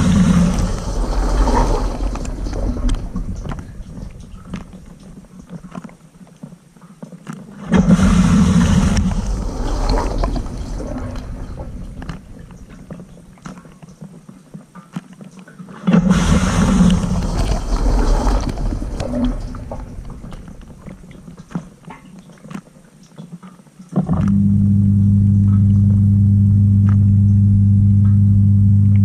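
Water surging and splashing inside a Cylinda dishwasher's tub in three sudden bursts about eight seconds apart, each dying away over several seconds. About 24 seconds in, a steady pump hum starts and holds.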